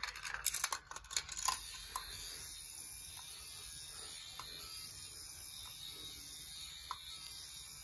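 A quick run of light plastic clicks and knocks as a Gravitrax marble run is set going. After that comes a steady faint hiss with an occasional soft tick.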